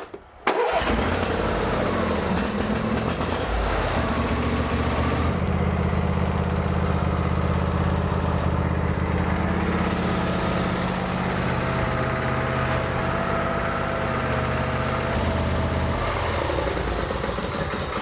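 Briggs & Stratton V-twin lawn tractor engine cranked and starting almost at once, then running steadily; its sound grows fuller about five seconds in and eases back near the end. The quick start follows a choke cable adjustment that lets the choke close fully, curing a hard-starting problem.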